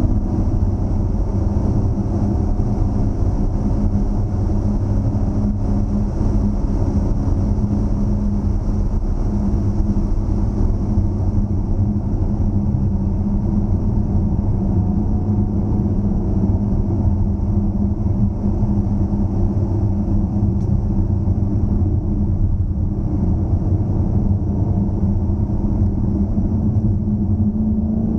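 2013 Dodge Challenger SRT8's 6.4-litre HEMI V8 running at a steady cruise: a low, even engine rumble held at a nearly constant note.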